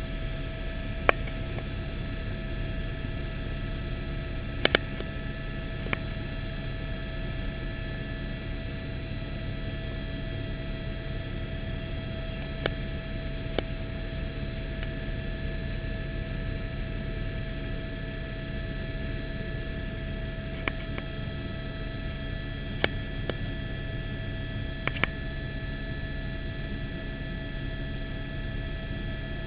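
Cabin noise of a light helicopter in flight, heard from inside the cockpit: a steady rumble of rotor and engine with a constant whine. A few sharp clicks are scattered through it.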